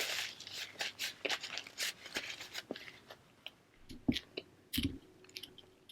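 A person chewing a bacon burger with crunchy bits: dense wet crunching and smacking at first, thinning out to scattered clicks. Two short low mouth sounds come about four and five seconds in.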